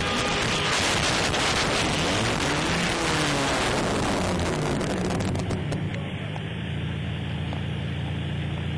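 Motor vehicle noise: a loud rushing with an engine note that falls in pitch, easing about six seconds in to a steady low engine hum.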